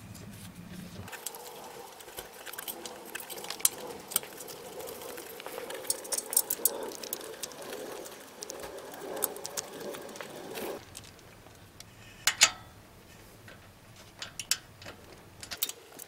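Quiet, scattered small metallic clicks and taps of an exhaust-hanger bolt being turned in by hand, played sped up, over a soft steady background hiss; a couple of sharper clicks stand out later on.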